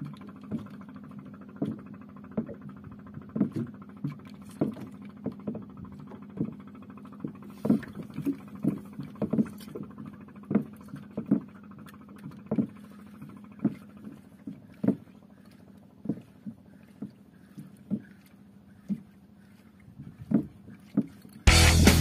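Low steady hum with a short knock roughly every second, the rhythm of a spinning rod being jerked and its reel cranked on a small boat while fast-jigging. Loud heavy rock music cuts in suddenly near the end.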